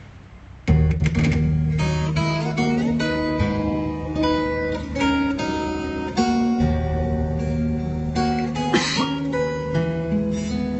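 Music with plucked and strummed guitar over a steady bass line, played through a class-D amplifier kit's loudspeakers. It starts suddenly about a second in, after a faint hiss.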